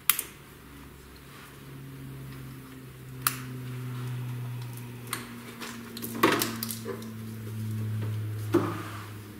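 A handful of sharp plastic clicks as electrical plug connectors of an injector harness are snapped onto the fuel injectors of a V8 engine and the wiring is handled. A low hum runs underneath and grows louder after the first few seconds.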